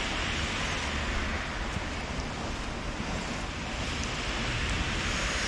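Steady rushing background noise, even throughout, with a few faint light ticks.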